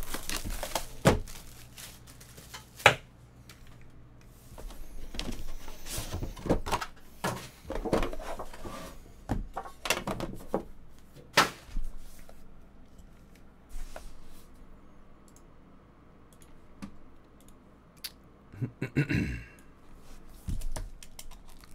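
Cardboard Panini Immaculate baseball card boxes being handled and set down on a table: scattered sharp knocks and taps with soft sliding and rustling between them, and a short scrape near the end.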